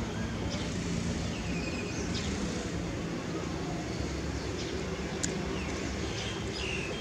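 Steady low engine-like hum, with a few short high chirps over it and one sharp click about five seconds in.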